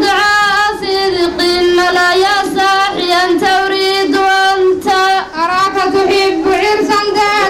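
Girls singing a melodic chant into a microphone, one voice at a time, with long held notes and gliding ornaments between short breaths.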